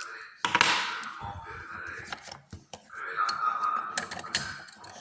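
Lock picking: small irregular clicks and scrapes of a pick and tension tool working in a dimple lock cylinder, with a louder handling knock about half a second in.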